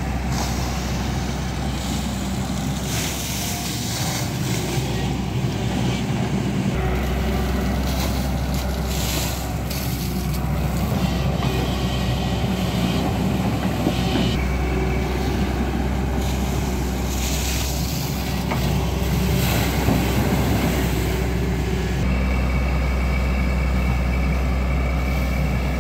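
Hyundai 210 crawler excavator's diesel engine running under working load, its low note stepping up and down a few times as the hydraulic arm digs and swings the bucket.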